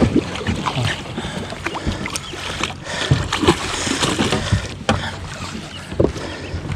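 Water splashing with scattered knocks and thumps while a hooked fish is being grabbed and landed by hand.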